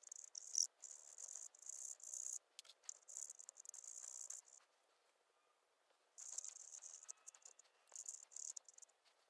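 Cotton swab rubbing back and forth over a laptop CPU die, scrubbing off old thermal paste with alcohol: a faint, high scratchy rasp in short bursts, pausing for about a second and a half after the middle.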